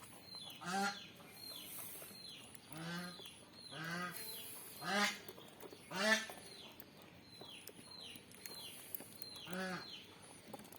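A bird calling in about six short, arched calls spread through the stretch, the loudest around five and six seconds in, over faint, quick, high chirps from other small birds.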